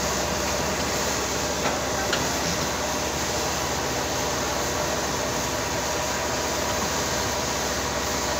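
Diesel engines and hydraulics of a Komatsu and a JCB excavator working in deep mud, a steady running noise with a faint steady whine. There are two faint clanks about two seconds in.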